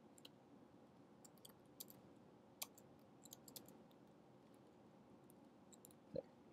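Faint, sparse computer-keyboard typing: scattered single key clicks, with one short, louder knock about six seconds in.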